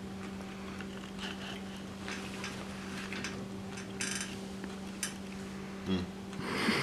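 A person chewing a big bite of a bacon burger: a few soft, scattered chewing noises, the loudest about four seconds in, over a steady low hum.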